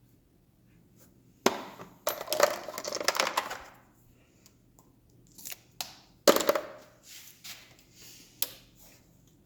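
Metal hand tools clattering and clinking as they are handled in a tool box drawer. There are two loud clatters, about a second and a half in and again about six seconds in, with a run of smaller clinks between and after.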